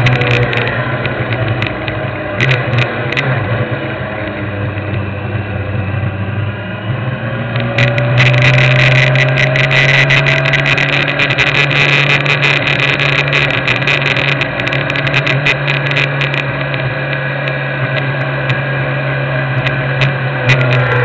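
Sport motorcycle engine running steadily at low revs while the bike rolls slowly, with scattered clicks and wind noise on the microphone.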